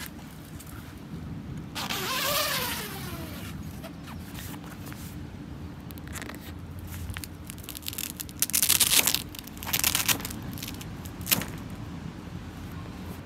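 Zipper on a fabric awning side-wall panel pulled in two quick rasping runs about eight and ten seconds in, followed by a single click. A steady low hum lies underneath, and about two seconds in a sound swells and fades with sliding pitch.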